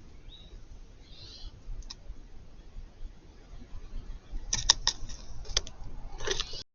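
A series of sharp clicks and knocks over a low rumble: one on its own, then a quick cluster in the second half, ending in a dense burst before the sound cuts off.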